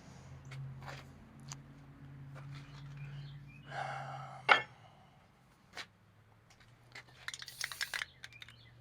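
Scattered light metallic clinks and clicks from hand tools or hardware being handled. One sharp click comes about halfway through, and a quick rattle of clicks follows near the end, over a faint low hum.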